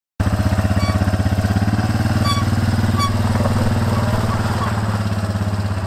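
Quad bike engine idling steadily with a fast, even putter.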